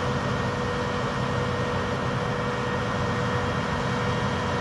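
Crane boom truck's engine running steadily: a low rumble with a thin, steady whine over it.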